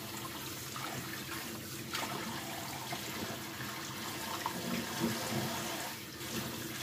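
Kitchen tap running into a stainless-steel sink while garlic scapes are rinsed by hand in a metal strainer under the stream. The splashing shifts as the stalks are moved.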